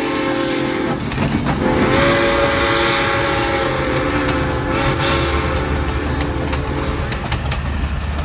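A steam locomotive whistle trails off in the first second. Then a train of passenger coaches rolls past with a steady rumble and clicks from wheels on the rail joints.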